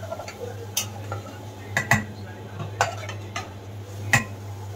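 A spatula stirring thick curry masala in a non-stick kadai, knocking and scraping against the pan about seven times at uneven intervals. A steady low hum runs underneath.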